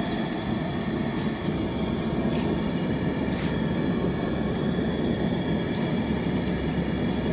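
A giant metal tray of cola-based hot pot broth at the boil, a steady low rumble, while a ladle stirs and sloshes through it with a couple of faint knocks.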